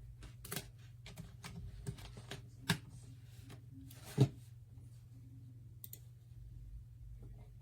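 Scattered sharp clicks and taps, irregular, with two louder knocks near the middle, over a low steady hum.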